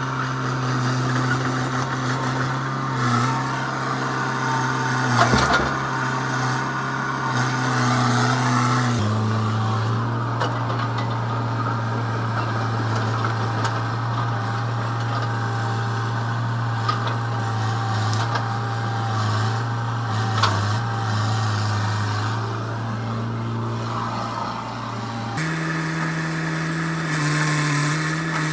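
Hitachi EX100 excavator's diesel engine running under steady throttle, its note stepping down about nine seconds in and up again near the end. A sharp knock about five seconds in.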